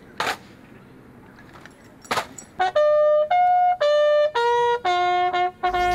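Two rifle volleys of a military funeral gun salute, about two seconds apart, then a bugle call of short separate notes stepping between a few pitches.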